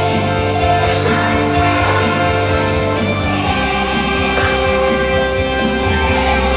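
Recorded music with guitar, playing steadily.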